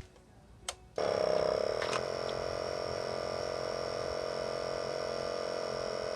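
A click, then about a second in the Yamaha Virago XV535's electric fuel pump starts a steady buzz, running after the ignition is switched on to prime the carburettor float bowls with fuel.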